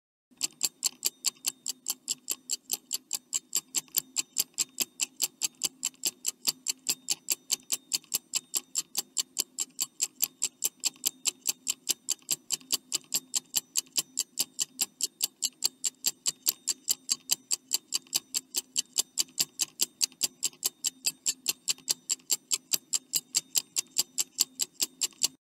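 Clock ticking sound effect for a countdown timer: a steady run of sharp, evenly spaced ticks, about two or three a second, beginning a moment in.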